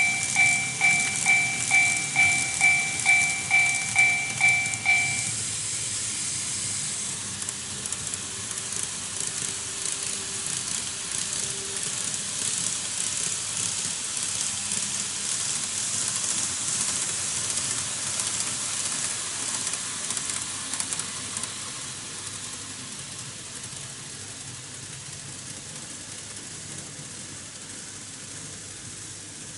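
TOMIX Automatic Level Crossing II model sounding its electronic Japanese crossing-warning bell, a repeated two-tone ding at a little over two strikes a second, which stops about five seconds in. After it, an N-scale model train runs over the track with a steady high rattle that fades away over the last several seconds.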